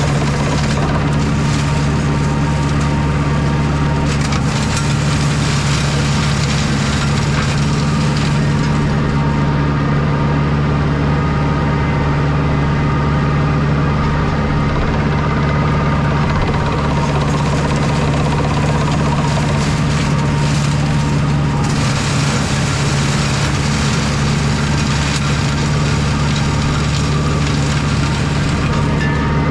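A compact tractor's engine runs steadily under heavy load while its flail mulcher shreds dense, years-old blackberry brush. Two stretches of harsher, hissing noise from the chopping sit on top of the engine, one over the first eight seconds or so and one about two-thirds of the way through.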